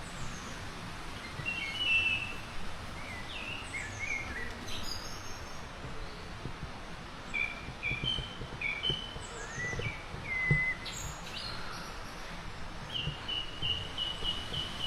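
Wild songbirds singing and calling outdoors: scattered chirps and short trills throughout, and a run of about six evenly repeated notes near the end, over a steady background hiss.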